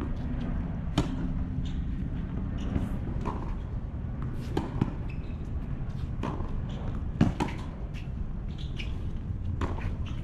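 Tennis rally on a hard court: a string of sharp pops from racket strings striking the ball and the ball bouncing on the court, coming at irregular intervals about every half second to second and a half, over a steady low background noise.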